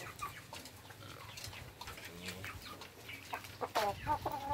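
Chickens clucking in short calls, coming louder and closer together near the end.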